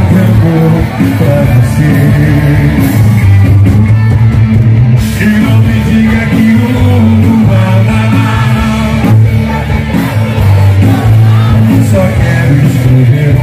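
Rock band playing loudly with a singer, electric guitar and a steady beat.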